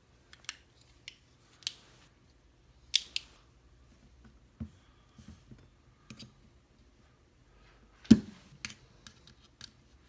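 Small metal tools clicking and scraping against a Mul-T-Lock Garrison lock cylinder while working to get its retaining clip off: scattered sharp clicks, the loudest a knock about eight seconds in.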